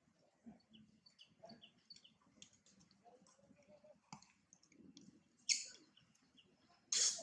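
Long-tailed macaque giving two short, harsh calls about a second and a half apart near the end, over faint high chirps and clicks.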